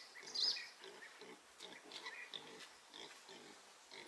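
Piglets squealing and grunting: two loud, high squeals at the start, then fainter squeals and low grunts.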